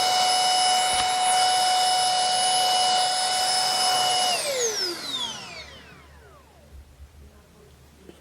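Easy Home cordless cyclonic stick vacuum running with a steady high motor whine, then switched off a little past four seconds in, its whine falling away as the motor spins down.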